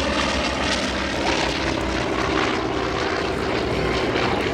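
Steady drone of military aircraft engines from a Navy legacy flight of an F/A-18 Hornet and an F4U Corsair flying together.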